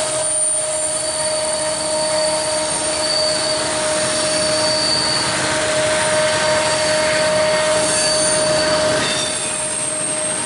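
Freight cars (tank cars, flatcars and a boxcar) rolling past on the rails, with a continuous rolling rumble and a steady high-pitched wheel squeal held at one pitch.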